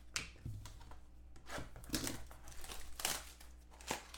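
Trading-card pack wrapper crinkling and tearing as it is opened, in several short rustles.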